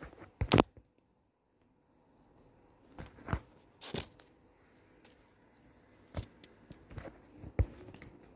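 A kitten playing with a hoodie drawstring: a handful of short scuffs and bumps of paws and fabric, spaced a second or more apart, the loudest near the start.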